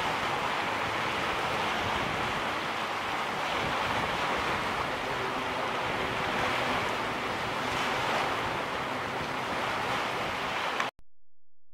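Small lake waves breaking and washing up on a sandy beach, a steady surf hiss that cuts off abruptly near the end.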